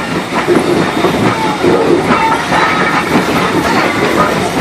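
Railroad cars rolling along the track: a steady, loud rumble with the wheels clattering.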